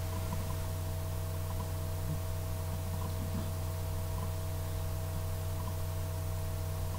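Steady electrical hum with a faint hiss underneath: room tone with no other clear sound.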